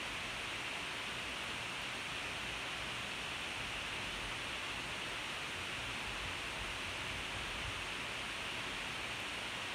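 Steady, even hiss of background noise, the noisy track of a poor recording, with nothing else standing out.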